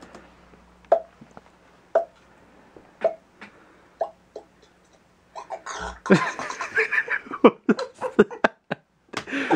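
Pop sounds made with the mouth, sharp single pops about once a second, coming closer together near the middle; then a louder, dense run of quick mouth noises fills the second half.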